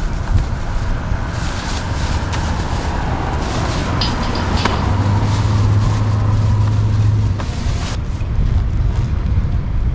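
Wind buffeting the microphone with a low rumble, over scattered rustles and clicks of grocery bags being handled and packed onto a parked motorcycle. A steady low hum joins about five seconds in and stops a couple of seconds later.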